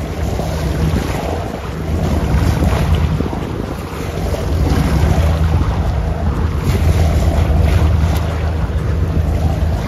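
Water rushing and splashing along the hull of a moving cruise boat, with wind buffeting the microphone. A steady low engine hum runs underneath, and the rush swells louder about halfway through.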